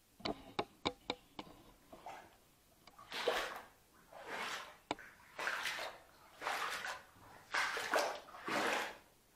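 Rubber boots wading through standing water on a flooded basement floor, sloshing and splashing with each step, about one step a second. A few sharp clicks come just before the steps begin.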